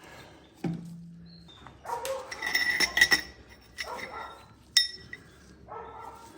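Steel differential parts from a GM 9.5-inch axle clinking and rattling as they are handled. A dull knock comes a little under a second in, a run of clinks between about two and three seconds, and a single sharp ringing clink near five seconds.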